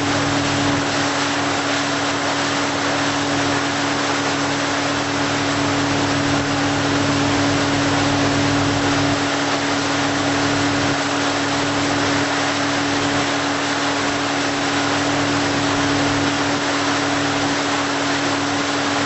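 Tow boat's engine running steadily at towing speed, a constant drone with a steady rushing noise over it.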